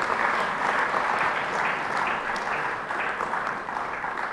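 Hall audience applauding steadily, easing off gradually toward the end.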